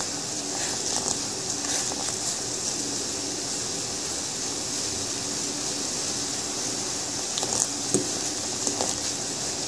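Water boiling hard in an aluminium pot: a steady bubbling hiss. A few faint clicks of a steel ladle against the pot come near the end.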